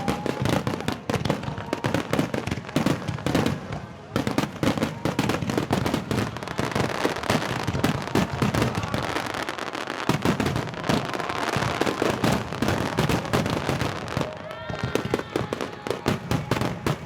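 Fireworks display: a dense, continuous barrage of bangs and crackles from aerial shells bursting in quick succession.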